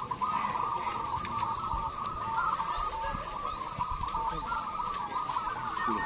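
A dense chorus of many caged zebra doves (perkutut) cooing at once, their calls overlapping without pause.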